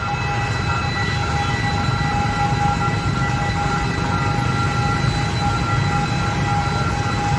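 Train running with a steady low rumble, a set of steady whining tones held over it.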